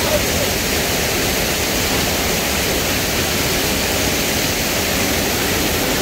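A small waterfall cascading over boulders into a shallow rocky pool: a steady, unbroken rush of water.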